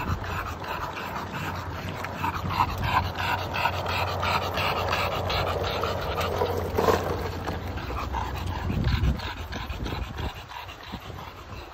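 English bulldog panting quickly and rhythmically while riding a skateboard, over the low rumble of the board's wheels rolling on asphalt. The rolling fades near the end.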